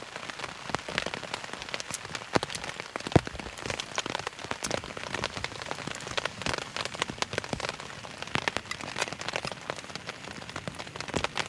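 Rain falling on the MSR Elixir 1 tent's fabric, heard from inside the tent: a steady patter of many separate drops landing at irregular moments. One sharper knock stands out about three seconds in.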